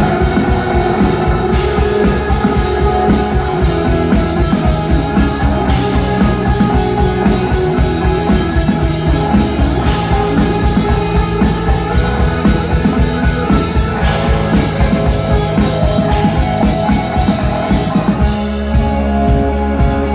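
Instrumental rock music with drum kit and guitar, a fast driving beat; the arrangement shifts about 18 seconds in.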